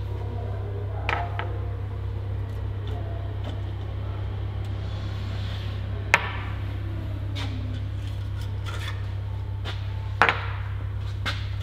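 Metal engine parts and hand tools knocking and clinking as a cylinder head is stripped, with sharp knocks about a second in, about six seconds in and, loudest, about ten seconds in, over a steady low hum.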